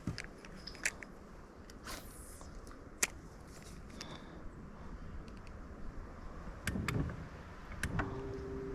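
Scattered light clicks and knocks of fishing tackle and boat handling over faint background noise; a steady electric trolling-motor hum comes on near the end.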